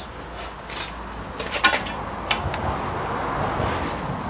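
Steel clinking and knocking a few times as a piece of steel section is handled in a bench vise, then a steady scraping of metal on metal over the last couple of seconds.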